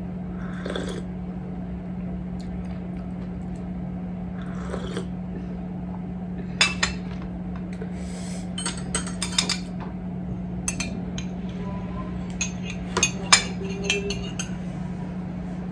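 Two soft sips of miso soup from a ceramic cup, then a spoon clinking and scraping against the cup and dishes many times in the second half, over a steady low hum.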